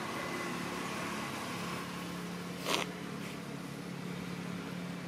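Steady hum of distant road traffic, with one short sharp sound about halfway through.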